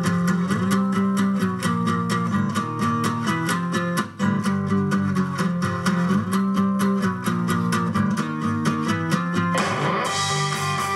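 Guitar music played from a portable MP3 player through a homemade 50 W class B transistor power amplifier into a three-way bass-reflex loudspeaker, as a listening test of the amplifier. The music briefly dips about four seconds in, and a brighter, fuller passage comes in near the end.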